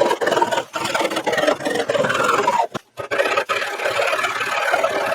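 Hand saw cutting through a board, the teeth rasping through the wood stroke after stroke, with a brief break just before the halfway point.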